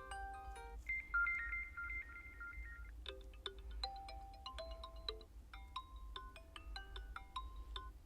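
Xiaomi 13T ringtones previewed one after another: the end of one tune, then an alternating two-note high trill for about two seconds, then a different tune of short, quick notes.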